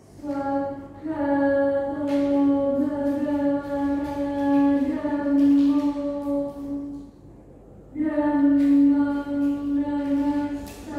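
A woman chanting Buddhist paritta verses on a steady, nearly level pitch, in two long phrases with a pause for breath about seven seconds in.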